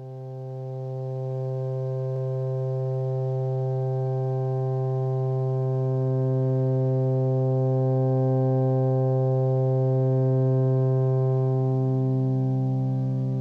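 Original film-score music: a held chord of many sustained tones over a deep low note, fading in over the first second or so, with a new note entering just above the low note near the end.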